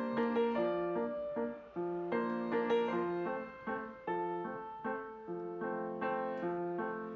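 Background piano music: a melody and chords, each note struck and dying away.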